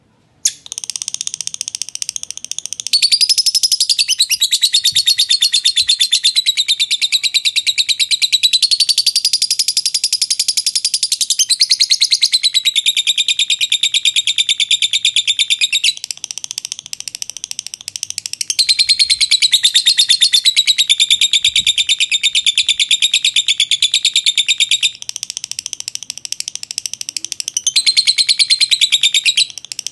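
Fischer's lovebird in a long unbroken 'ngekek': a very rapid, high-pitched chattering trill that starts about half a second in and carries on without a break, growing louder and softer several times. This long ngekek is the song prized in Indonesian lovebird contests, the sign of a bird in top singing form.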